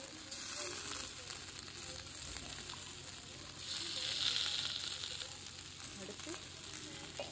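Onion-and-spice masala sizzling quietly in oil in an aluminium pot as ground coconut paste is dropped in by hand. The hiss swells briefly about four seconds in.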